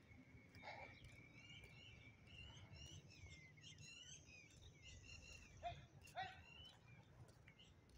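Faint birds chirping and calling, with a quick run of twittering notes in the middle, over a low background hum.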